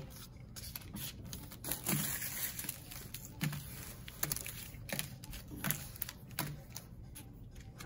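Plastic-wrapped trading card packs crinkling as they are shuffled in the hands and dropped one at a time onto a wooden table: irregular soft crackles and light taps.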